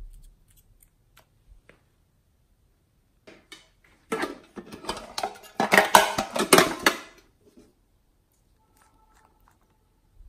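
Small containers of slime ingredients being handled. A few light plastic clicks come first, then about three seconds of dense clattering and scraping with sharp clicks as a metal tin case is handled.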